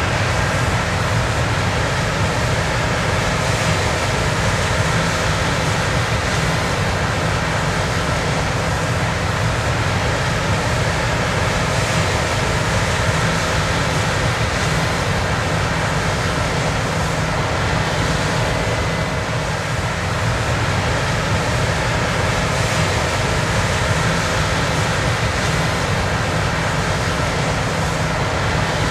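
Steady, loud machinery noise: a constant engine hum under an even rushing noise, unchanging throughout.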